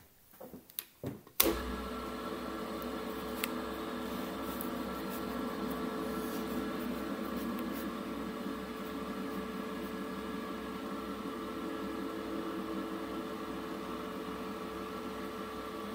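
Bench drill press switched on about a second and a half in with a sharp click, then its motor running steadily with the 5 mm wood bit spinning. A few light knocks just before it starts.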